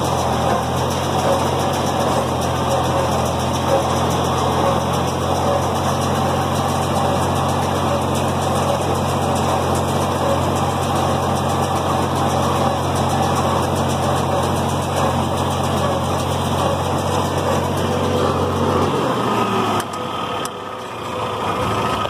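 John Deere 4020 tractor engine running steadily under load while pulling a working John Deere 337 square baler, with a constant mechanical clatter over the engine note. Near the end the engine note drops and the sound falls away as the rig slows.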